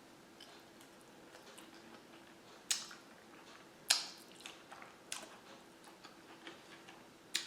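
Close-up eating sounds: a few sharp clicks and smacks, about four over several seconds, as a bite of pasta is chewed, over a faint steady hum.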